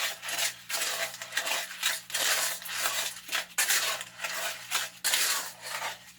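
A spoon stirring and scraping through a stiff wet concrete mix of cement, sand and gravel in a container, in quick regular strokes about two to three a second, as water is worked in to bring it to an oatmeal-like consistency.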